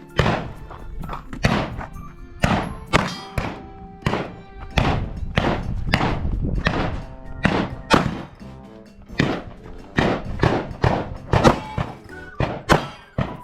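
A string of 9mm pistol shots fired at uneven intervals while moving through a shooting course, over background music.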